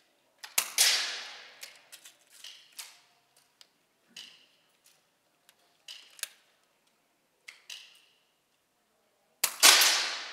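Shots fired on an indoor shooting range, each ringing on through the hall: a loud one about half a second in and another near the end, with fainter clicks and knocks in between.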